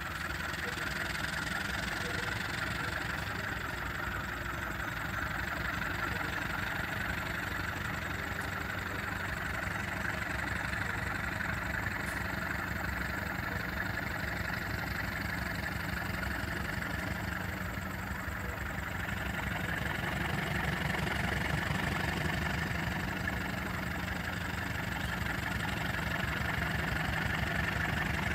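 Diesel locomotive engine running steadily at low revs, growing a little louder about two-thirds of the way through.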